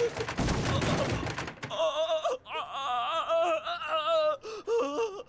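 A dull, noisy thud-like burst, then a person's high, wavering wail held for nearly three seconds, broken into short vocal cries near the end.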